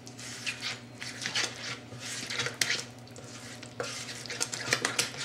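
Spatula stirring and scraping wet cornbread batter around a plastic mixing bowl, in quick irregular strokes.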